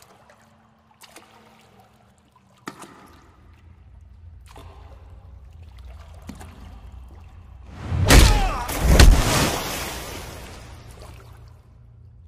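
Film sound effects: a few faint knocks over a low rumble, then a loud double cracking crash about eight seconds in, a thick tree branch being broken off.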